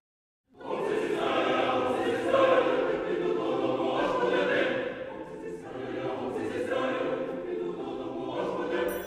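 A large choir singing, many voices together. It comes in about half a second in, after a moment of silence.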